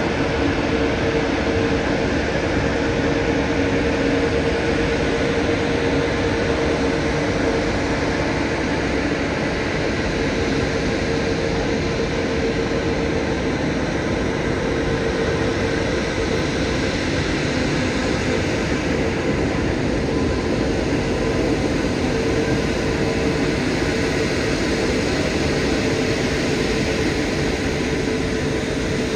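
Airbus A380 jet engines running at taxi power: a steady loud rush with a constant mid-pitched whine.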